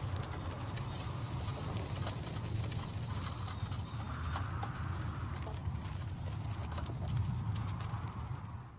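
Strong wind blowing hard across the microphone: a steady low rumble of buffeting that swells and eases in gusts, with many sharp ticks through it. It cuts off abruptly near the end.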